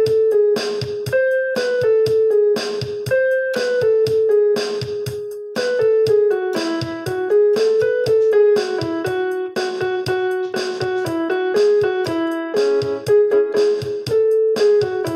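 Background music: a melody of quick, evenly spaced notes.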